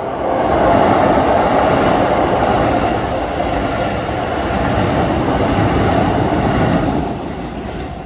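A Keisei Line commuter train passing over a level crossing close by, wheels rumbling on the rails. The noise swells within the first second, holds loud, and falls away about a second before the end.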